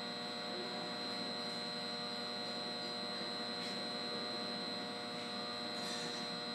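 Steady electrical hum from energized switchgear and control cabinets, with several fixed tones and a thin high whine.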